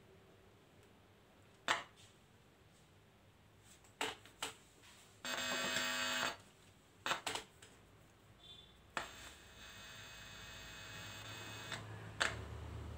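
Speaker fed from a 5.1 decoder board's subwoofer output while the board and its wires are handled: several sharp clicks and a buzz lasting about a second near the middle. After that a faint, low bass sound builds up slowly over the last few seconds.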